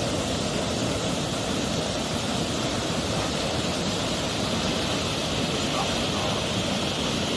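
Flooded river rushing over rocks and a small weir: a steady, even noise of fast whitewater.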